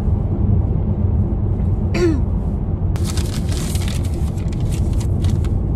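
Steady low rumble inside the cabin of a Ssangyong Tivoli Air. A brief falling sound comes about two seconds in, and a crackling rustle runs from about three seconds in.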